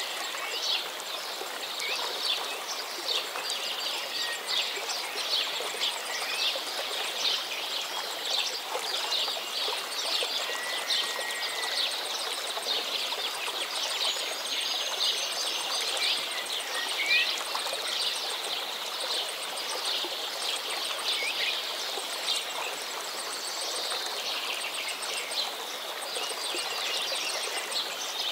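Steady running water, like a babbling stream, with a few short bird chirps now and then.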